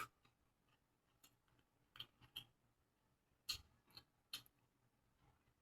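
Faint, close-miked eating sounds: a scattering of short, crisp mouth clicks and chewing noises, about eight in all, irregularly spaced, with a cluster around the middle.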